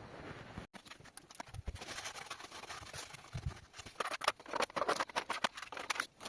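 Irregular clicking and clattering of metal parts and hand tools being handled, busier in the second half.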